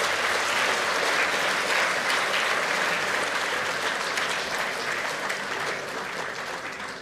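Audience applauding: dense, steady clapping that slowly dies away over the last few seconds.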